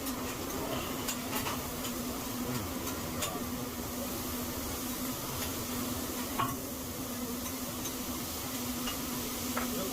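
Food sizzling on a hibachi griddle, with a few sharp clicks of metal utensils on the hot plate, over a steady low hum.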